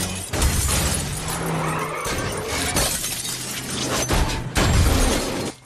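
Film car-crash sound effects: glass shattering and repeated crashing impacts as cars collide. The sound drops out briefly just before the end.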